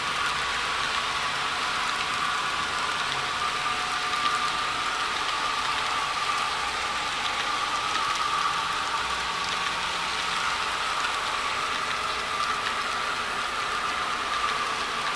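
HO scale model freight cars rolling steadily over model track: an even rolling hiss with faint fine clicks from the wheels, under a steady hum.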